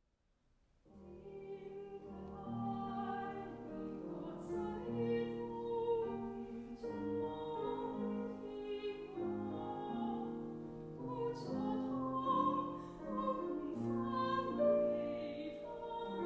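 Classical-style singing with piano accompaniment, starting about a second in after a brief silence.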